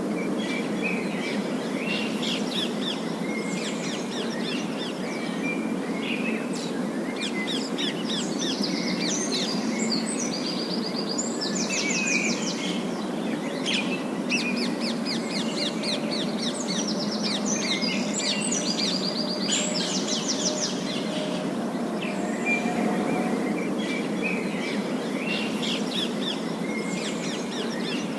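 Parakeets chattering: many quick chirps and fast trilling warbles, several birds at once, over a steady low background noise.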